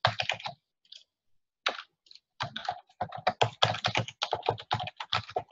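Typing on a computer keyboard, entering an email address: a quick run of keystrokes, a pause of about a second and a half, then a steady run of keystrokes at about five a second.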